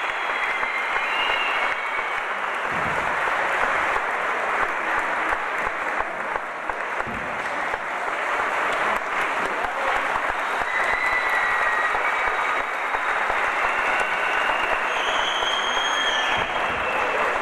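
Audience applauding steadily in a large hall, with a few brief high calls rising over the clapping.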